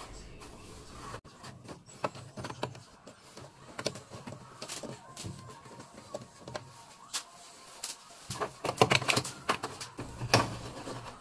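Irregular clicks, taps and knocks of hand tools and plastic parts as the washing machine's lid switch is worked loose, with a busier run of rattling near the end.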